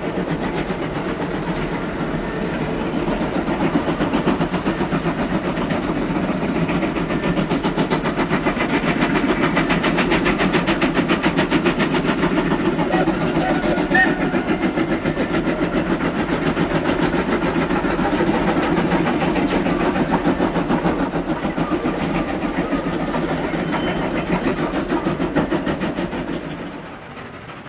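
Steam locomotive working a train, its exhaust beats coming fast and regular. The sound grows louder a few seconds in, then drops away suddenly near the end.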